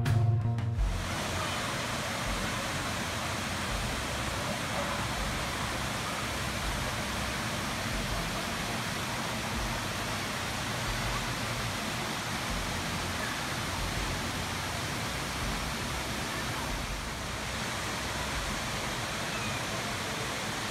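Waterfall and creek rapids rushing: a steady, even noise of falling and running water. Music cuts off about a second in.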